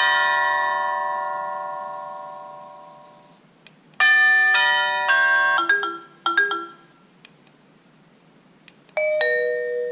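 Honeywell 3 Series wireless doorbell chime playing its preset ring tunes through its speaker while the tunes are being previewed to pick one. A ringing chime dies away over the first three seconds. A new tune of quick notes plays about four seconds in, and another chime starts near the end.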